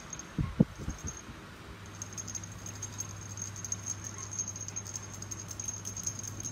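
A kitten pouncing on a feather toy: a few soft knocks and scrabbles against a plastic fan base in the first second. From about two seconds in, a steady low hum and a thin high whine run on under faint ticks.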